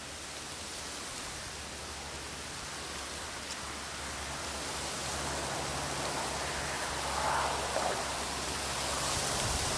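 Strong wind blowing through bamboo: a steady rushing hiss of leaves that slowly grows louder, with a few stronger gusts in the last few seconds.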